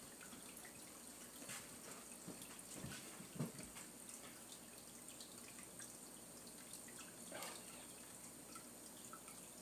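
Near silence: room tone with a few faint scattered clicks and one soft knock about three and a half seconds in.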